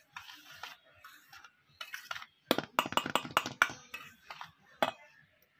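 Wire whisk stirring a dry, crumbly mix of crushed biscuit and oil in a stainless steel bowl, its wires clicking and scraping against the metal. The strokes come fast, about five a second, around the middle, with a last sharp clink near the end.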